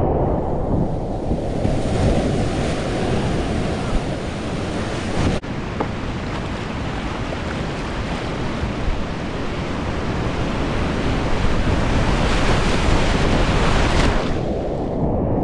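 Whitewater rapids rushing around a kayak, with water splashing close to the microphone as the boat runs through the waves.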